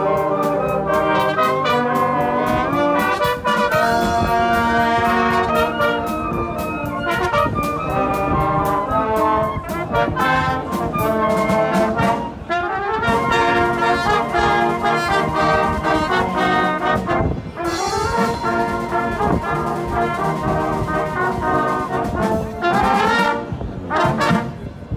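Wind band playing, with trumpets and other brass over flutes and clarinets. The music breaks off right at the end.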